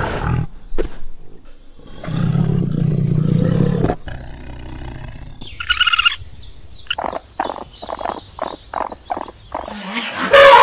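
A string of animal calls. A tiger gives a long low growl between about two and four seconds in, followed by a short high call and then a run of short repeated calls, about three a second.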